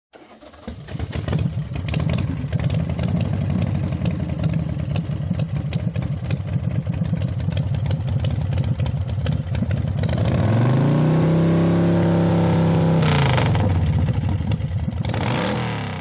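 An engine idling with a rapid, rough firing beat that fades in over the first second or two. About ten seconds in it revs up, holds high for a couple of seconds, then drops back down near the end.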